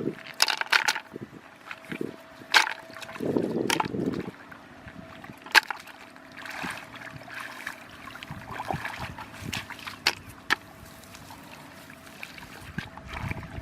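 Water splashing and sloshing in irregular bursts, with several sharp knocks, over a faint steady whine.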